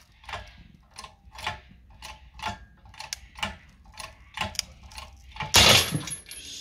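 Ratchet tie-down strap being cranked: a run of sharp ratcheting clicks about twice a second. Near the end comes a loud sudden burst as the strap gives way.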